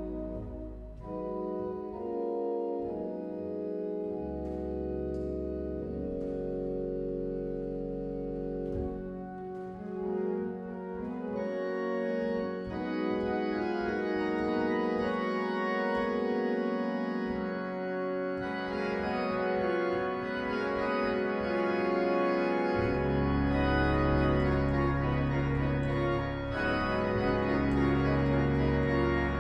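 Organ playing a medley of popular tunes in sustained held chords. The sound grows fuller about twelve seconds in and again a few seconds later, and deep bass pedal notes come in and hold through the last third.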